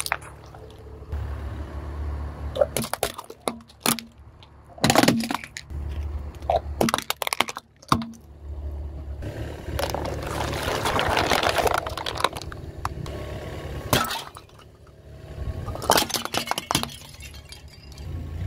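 Plastic cups and bottles cracking, popping and squelching one after another as a car tyre rolls over them, over the low rumble of the car running. Near the middle comes a few seconds of dense crackling hiss.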